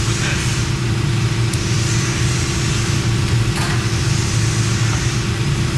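Steady low mechanical hum with a constant drone, unchanging throughout.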